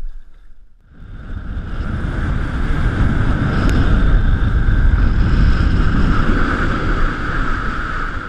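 Strong wind buffeting a GoPro camera's microphone: a loud, rumbling rush that swells over the first couple of seconds and then holds, with choppy water around the boat mixed in.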